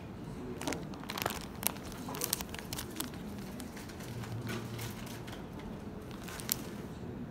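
Clear plastic packaging crinkling as it is handled, in a string of irregular crackles.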